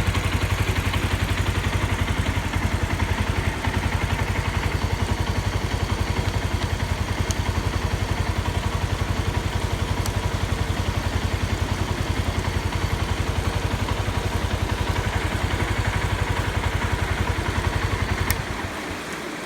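Suzuki Grasstracker Big Boy's single-cylinder four-stroke engine idling with a steady, even beat and no abnormal engine noise, then a click and the engine cuts off near the end.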